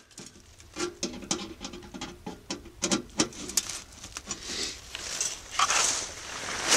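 Small titanium wood stove being put together: a run of light metal clicks and scrapes as its legs are slid into place, then rustling of dry leaves under him for the last couple of seconds.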